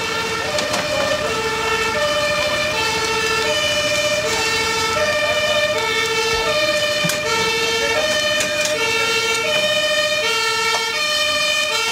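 Fire engine's two-tone siren sounding, alternating evenly between a low and a high note, one full cycle about every second and a half.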